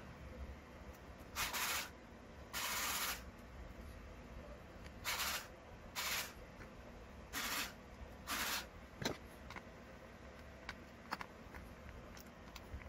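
Screws being driven into an RC buggy's chassis with a hex driver: six short rasping bursts of about half a second each, then light clicks and taps of the tool and small parts near the end.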